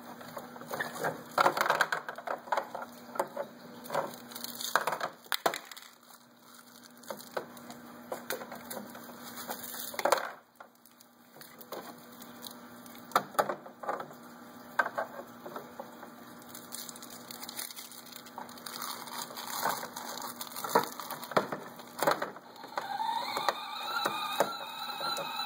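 Plastic toy cups, dishes and teapot clicking and knocking together as a child handles them, in scattered irregular taps. A pitched sound comes in near the end.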